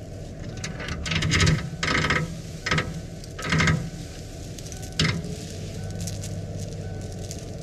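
A tow chain rattling as it is handled and gathered up, in about five short bursts over the first five seconds, the loudest near the start.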